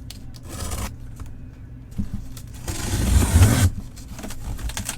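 A sealed box being cut open: scraping and tearing as a blade goes through its seal, with a short burst early and a longer, louder one about three seconds in.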